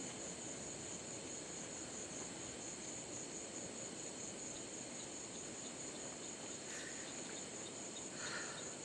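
Crickets trilling in a steady, high, rapidly pulsing chorus over the continuous rush of a waterfall.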